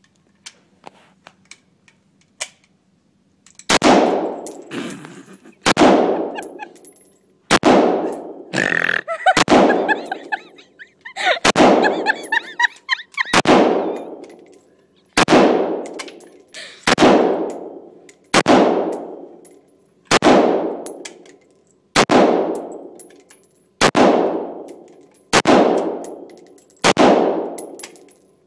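AR-15 rifle fired in single shots, each with a long reverberant tail off the walls of an indoor range: a few faint clicks first, then about eighteen shots, irregular for the first several seconds and then evenly spaced about one every 1.7 seconds.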